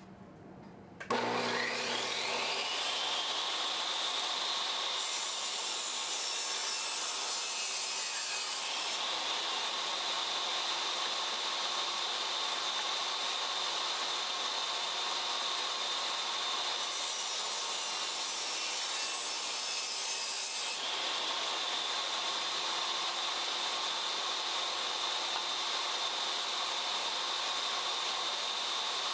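Table saw motor starts about a second in, whining up to speed, then runs steadily. Plywood pieces are fed through the blade twice, each cut adding a harsher, higher hiss for about four seconds.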